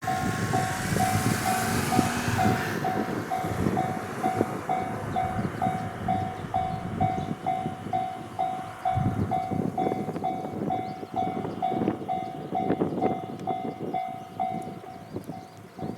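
Japanese level-crossing alarm bell ringing steadily at about two and a half strikes a second while a diesel railcar runs over the crossing, its rumble and wheel knocks easing toward the end.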